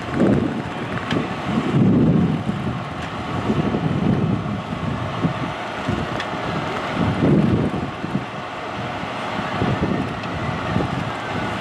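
Wind buffeting the microphone in uneven gusts over the steady drone of a fire engine's engine and pump running.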